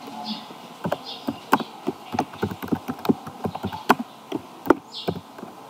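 Typing on a computer keyboard: an irregular run of key clicks, several a second, a few of them struck harder than the rest.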